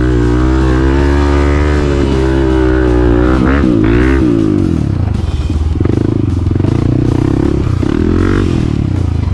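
Honda CRF250F's single-cylinder four-stroke engine running under throttle on a dirt track. Its pitch swings down and back up about four seconds in, then runs lower and rougher.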